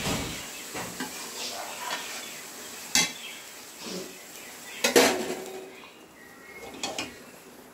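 Pots, pans and cooking utensils clattering: a few separate sharp clinks and knocks, the loudest about five seconds in.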